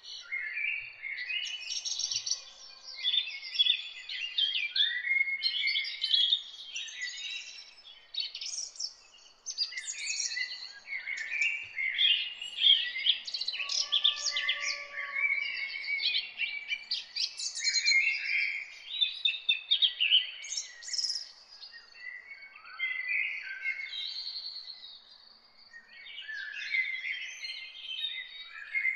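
A flock of small birds chirping and twittering without a break, many short overlapping calls.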